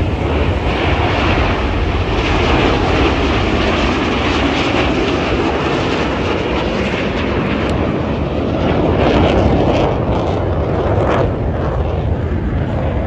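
Aircraft engine noise: a loud, steady rushing rumble that swells slightly about nine seconds in.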